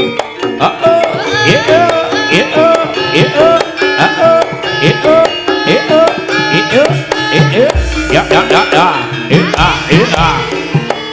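Live jaranan music: hand drums, the kendang, playing fast rhythmic strokes whose pitch bends, over a repeating tuned melody. A deep low note comes in near the end.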